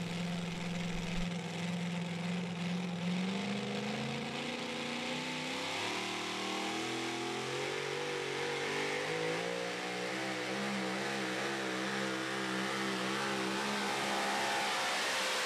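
Engine of a 1950 Ford super modified pulling truck at full throttle during a pull. Its pitch holds level for the first few seconds, then climbs slowly and unevenly through the run.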